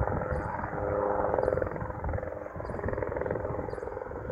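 Distant Enstrom 480B turbine helicopter approaching, its rotor thrum carrying a whine that swells about a second in and then eases. Wind buffets the microphone.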